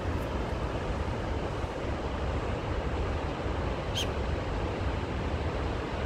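Wind buffeting the phone's microphone outdoors: a steady, fluctuating rushing rumble. A single short high chirp sounds about four seconds in.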